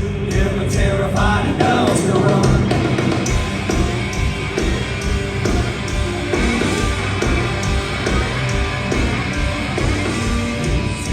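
A heavy southern metal band playing live and loud: distorted guitars and pounding drums under a yelled and sung lead vocal.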